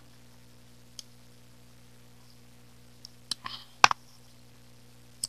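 A few sharp clicks and taps of small ice cream cups being handled and put down on the table, clustered between about three and four seconds in with the loudest click just before four seconds, and one more at the end.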